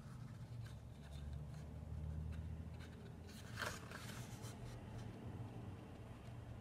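Paper pages of a small colouring book being handled and turned, with a louder rustle of paper about three and a half seconds in, over a low steady hum.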